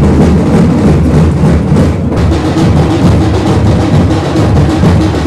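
Loud drumming with other percussion, many quick strokes beaten continuously, played for a palanquin procession.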